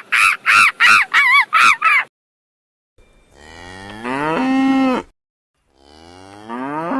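A cow mooing twice: each moo is a long low call that slides down in pitch and then holds. Before it, a quick run of short high calls, about three a second, stops about two seconds in.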